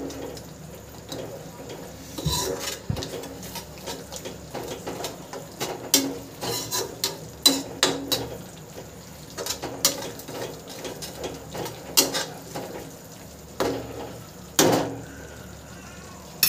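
Perforated metal spatula scraping and knocking against a metal kadai in irregular strokes as a thick onion-tomato-curd masala is stirred while it fries (bhuna).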